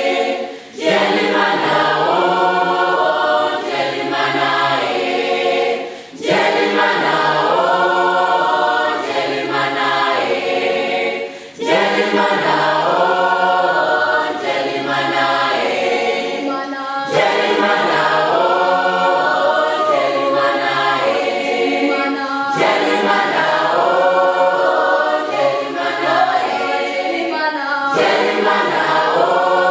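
Children's choir singing unaccompanied in harmony. It sings in repeating phrases of about five to six seconds, with a brief break between them.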